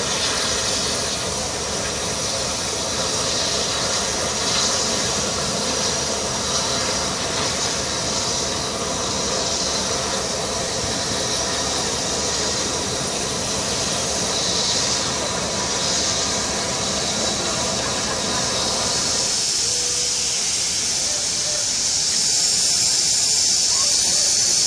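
Steam hissing steadily from a rebuilt West Country class steam locomotive, a Bulleid Light Pacific, as it moves slowly. A lower rumble under the hiss drops away about twenty seconds in, while the high hiss carries on and grows louder near the end.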